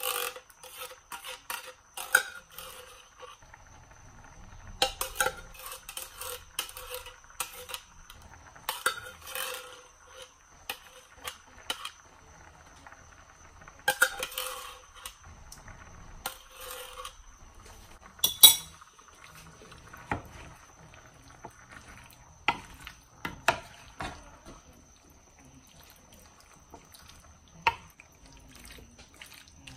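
Irregular clinks, knocks and scrapes of a spoon against a can and a square skillet as cream of chicken soup is emptied into the pan and the chicken pot pie filling is stirred. The sharpest knock comes about eighteen seconds in.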